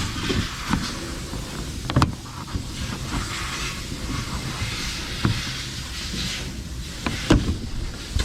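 Steady loud hiss and low hum of an air compressor running, with a few sharp knocks and clicks from plastic trunk trim and clips being handled, the loudest about two seconds in and a pair near the end.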